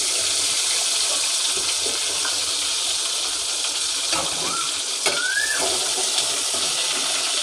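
Hot oil sizzling steadily around a rohu fish head frying in a pot.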